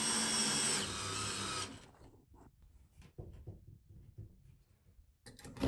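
Cordless drill driving a screw through the vanity cabinet's back rail into the wall, the motor running steadily and stopping about two seconds in. Faint clicks and knocks of handling follow.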